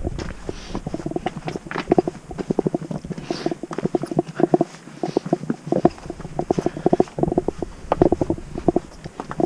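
Footsteps on rock and grass with gear and clothing rubbing close to a body-worn camera's microphone, heard as a rapid, uneven run of soft knocks and scuffs.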